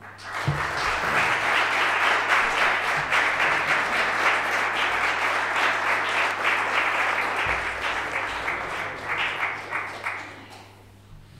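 Audience applauding at the close of a talk: dense, steady clapping that starts at once and dies away about ten seconds in.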